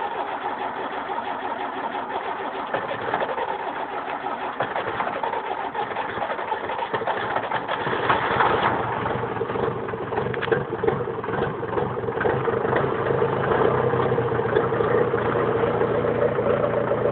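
International B-275 tractor's diesel engine running just after a cold start, weak glow plugs making it hard to start; about eight seconds in it gets louder and settles into a steadier, fuller idle.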